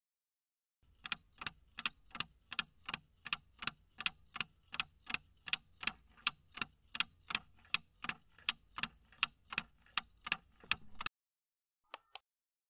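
Clock-tick countdown timer sound effect: even, sharp ticks at about three a second for some ten seconds, stopping abruptly. Two quick short clicks follow near the end.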